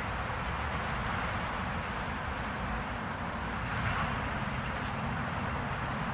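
Distant city traffic: a steady low rumble under an even hiss, with a few faint ticks.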